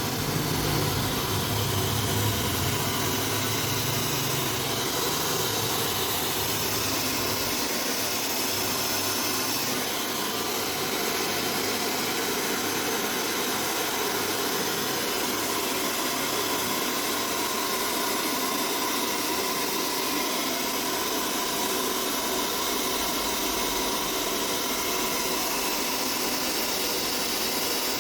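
Steady rushing, hissing machine noise that holds even throughout, a little fuller in the low end for the first several seconds.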